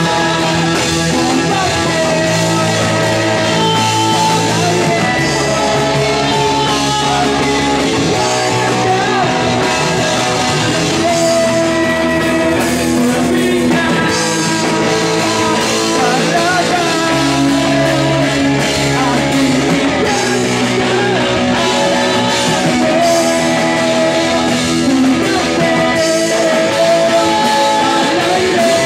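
A rock band playing live: two singers over electric guitar, bass guitar and a drum kit, loud and without a break.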